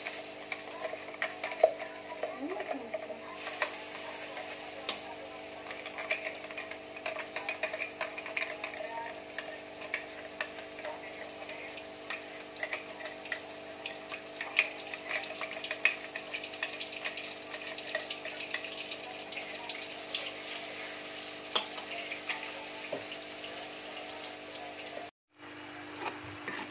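Blended spice paste sizzling and crackling as it fries in hot oil in an aluminium wok, stirred with a metal spatula. A steady low hum runs underneath, and the sound cuts out briefly near the end.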